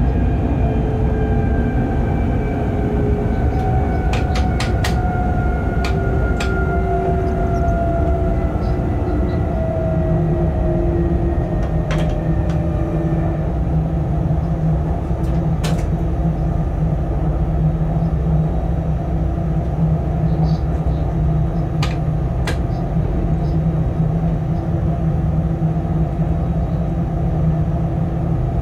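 Cab noise of a light locomotive running along the line: a steady rumble from the rails, with a whine from the drive that falls slowly in pitch through the first half and a few sharp clicks scattered through.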